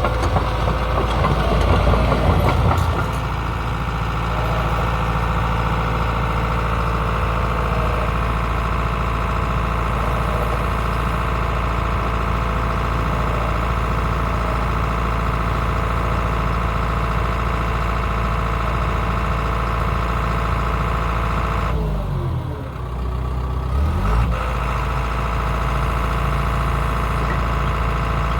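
Excavator's diesel engine running steadily, louder and busier for the first few seconds. About 22 seconds in, the engine note dips and then climbs back.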